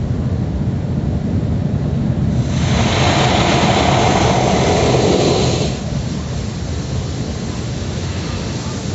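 Automatic car wash heard from inside the car: a steady low rumble of the wash machinery, with a loud hissing rush of spray or air against the body starting about two and a half seconds in and cutting off about three seconds later.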